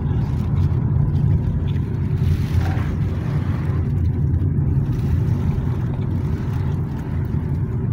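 Car engine and tyre noise heard inside the cabin while driving, a steady low rumble.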